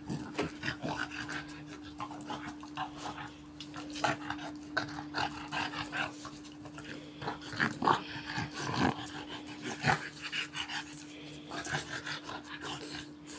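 Dogs play-growling in many short, irregular bursts as they tussle together.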